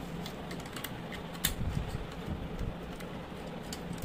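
Light, scattered clicks and scrapes of a small screwdriver working the terminal screws on a clothes iron's plastic terminal block, the sharpest tick about a second and a half in.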